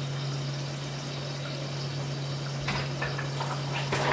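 Whole spices frying gently in hot oil in an aluminium pressure cooker, a soft steady sizzle over a low steady hum, with a few light knocks of a utensil against metal near the end.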